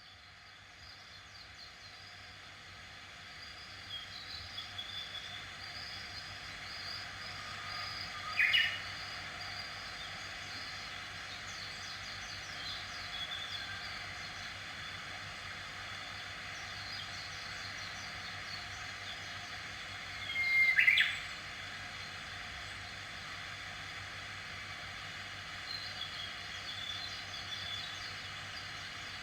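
Wild birds chirping over a steady high background hiss, with two short, louder calls about eight and twenty-one seconds in.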